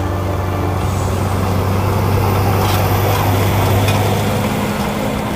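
Tractor engine running steadily under load as it drives past pulling a trailed compact disc harrow. The harrow's big serrated discs cutting and throwing soil add a rushing noise that builds to its loudest about midway. Scattered sharp clicks come through at the loudest part.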